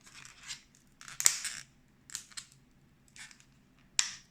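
Stiff plastic retail packaging being forced open: a run of separate crackling scrapes and snips, with a sharp crack about a second in and another near the end.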